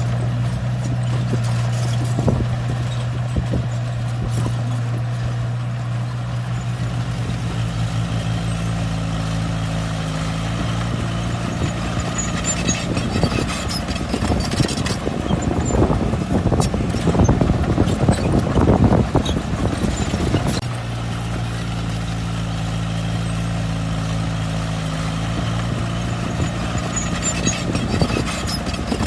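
Diesel engine of heavy earth-moving machinery running steadily, with a louder stretch of rattling and scraping from a little before halfway to about two-thirds through.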